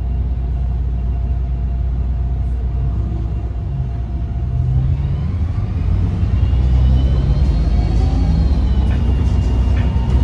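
Diesel bus engine running with a steady low rumble; from about halfway a high turbocharger whistle rises and glides up and down in pitch.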